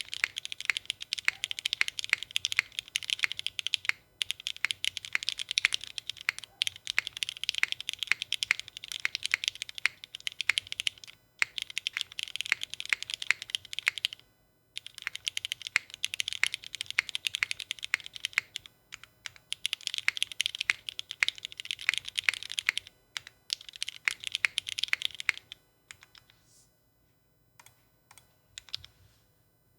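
Typing on a Kohaku custom mechanical keyboard with Cherry MX2A switches, an aluminium plate, gasket mounting and GMK Norse keycaps: quick runs of keystrokes lasting a few seconds each, broken by brief pauses. Near the end the typing stops, leaving only a few scattered keystrokes.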